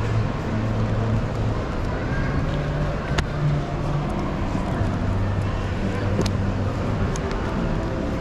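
Steady crowd hubbub in a large hall, many indistinct voices overlapping, with a few sharp clicks.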